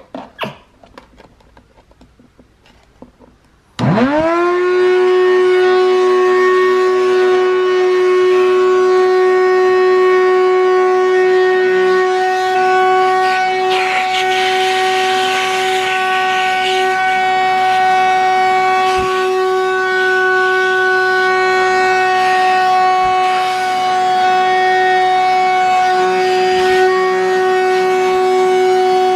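Shop-Vac wet/dry vacuum switched on about four seconds in: its motor spins up with a quick rising whine and settles into a steady high-pitched hum over rushing air. The air rush gets rougher for a few seconds in the middle.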